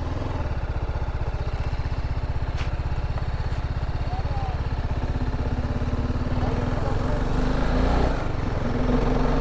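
Motorcycle engine running steadily with an even pulse as the bike rolls slowly, with faint voices near the end.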